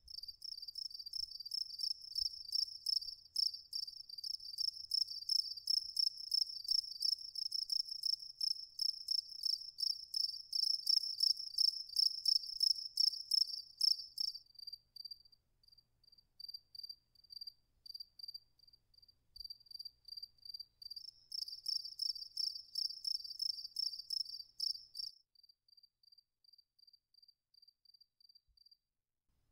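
Crickets chirping in a steady rhythm, dense and loud through the first half and again for a few seconds past the middle, with a fainter, slower single chirp in between and near the end.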